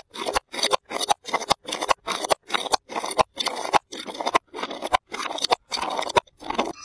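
A filled glass jar tumbling down concrete steps, knocking and scraping on each step about three times a second, without breaking.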